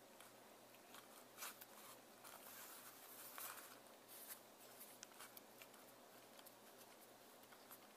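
Faint scraping and a few soft clicks of a precision screwdriver working the rear mount screws of a Canon EF 50mm f/1.8 II lens, most of it a little over a second in and between about two and four seconds in.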